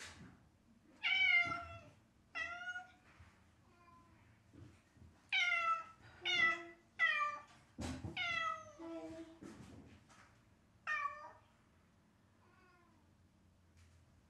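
A domestic cat meowing over and over: about seven clear meows, each about half a second long and falling in pitch, with a few fainter ones between them.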